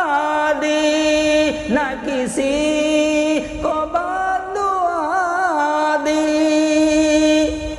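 A man sings a naat, an Urdu devotional song in praise of the Prophet, drawing out long held notes with wavering melodic turns. There are short breaks about two seconds in and again about three and a half seconds in.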